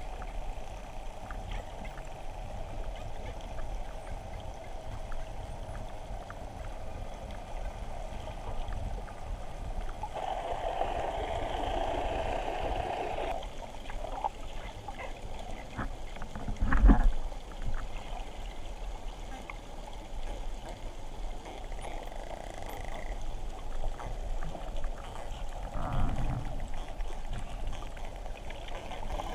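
Underwater ambience heard through a submerged camera: a steady wash of water noise with a low rumble. It swells louder for a few seconds about ten seconds in, and one loud thump comes about seventeen seconds in.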